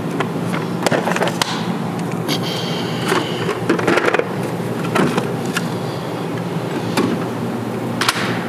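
Tools being handled at a Snap-on Epiq tool chest, with a scatter of short clicks and knocks about a second apart as a socket case is put away and a drawer worked, over a steady low hum.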